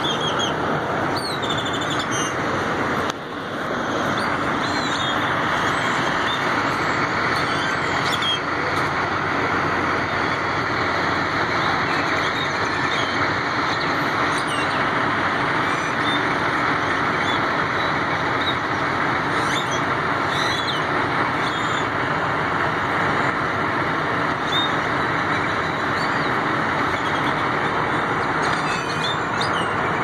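A flock of birds chirping, many short high calls over one another, over the steady rumble of idling semi trucks.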